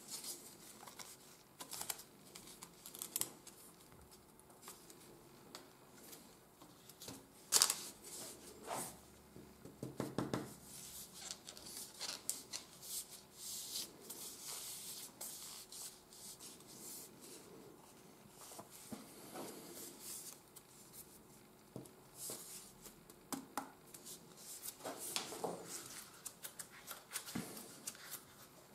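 Rolled tubes of office paper handled and rolled on a wooden tabletop: intermittent soft paper rustling and rubbing, with a sharper tap about seven and a half seconds in.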